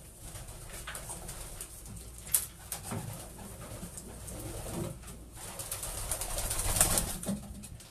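Racing pigeons cooing in their loft, with a burst of wing-flapping about six to seven seconds in as a pigeon is caught by hand.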